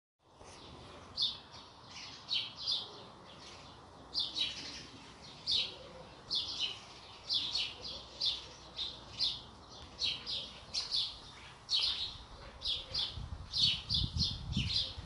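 A small bird chirping: a long run of short, sharp chirps, singly or in quick pairs and threes, about two a second. A low rumble builds near the end.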